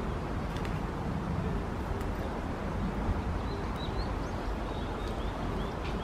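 Outdoor background rumble, with a few short, faint, high bird chirps in the second half.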